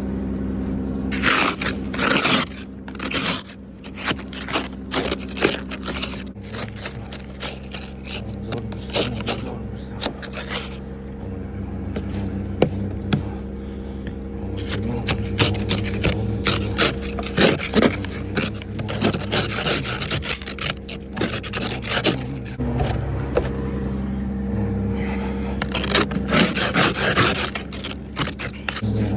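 Repeated, irregular scraping and rubbing noises with scattered clicks, over a steady low hum.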